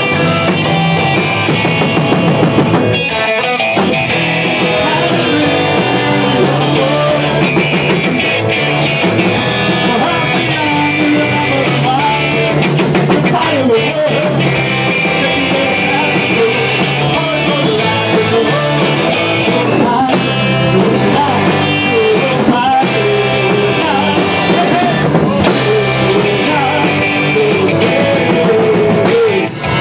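Live rock band playing loud through a club PA: electric guitars and a drum kit, with a man singing lead over them from about a third of the way in.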